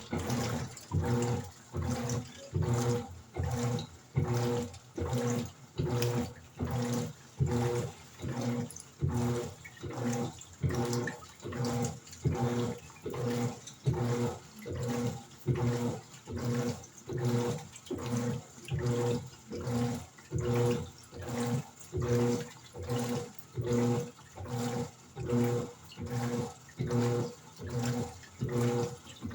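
Electrolux 14 kg top-load washing machine agitating its wash: the motor hums with each back-and-forth stroke of the agitator, sloshing water and clothes, in an even rhythm of roughly one and a half strokes a second.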